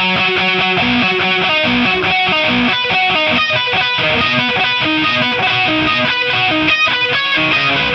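Electric guitar music: a PRS SE 245 played through Amplitube 4 amp simulation with some distortion, picking a melody of quick single notes over a repeating accompaniment.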